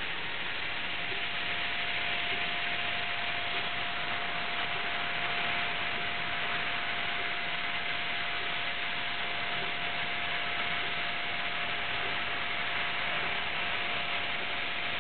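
CNC laser cutter cutting 3/8-inch stainless steel plate: a steady hiss, with a steady tone joining about half a second in and holding.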